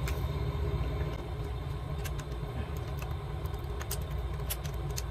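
Small clicks and taps of a plastic smartphone frame and cover being handled and pressed into place, over a steady low hum.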